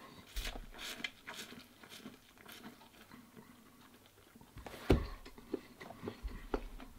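A person eating ramen noodles with chopsticks: chewing with small, irregular wet mouth clicks, and one louder thump about five seconds in.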